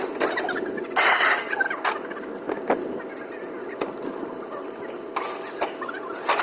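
Scrap metal being thrown off a trailer: a loud crash about a second in, then scattered clanks and knocks.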